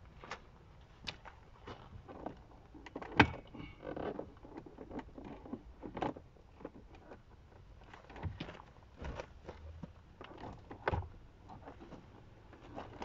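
Plastic interior door trim panel of a VW Passat B6 being pulled and worked loose by hand: scattered sharp plastic clicks and knocks, with one louder crack about three seconds in.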